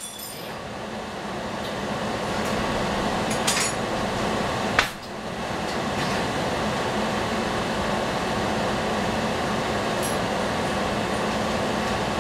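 Steady hiss of water steaming and simmering in a covered stainless sauté pan over a gas burner, building over the first couple of seconds, with a sharp click about five seconds in.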